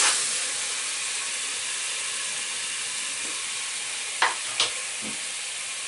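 Chopped red onion sizzling in a pan of olive oil and white balsamic vinegar, a steady hiss. Two short clicks a little after four seconds in.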